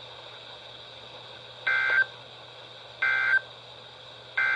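Emergency Alert System end-of-message code: three short bursts of buzzing two-tone data about 1.3 seconds apart, marking the end of the alert. A faint steady hum runs between the bursts.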